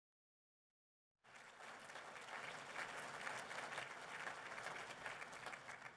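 Audience applauding, starting suddenly about a second in and easing off slightly near the end.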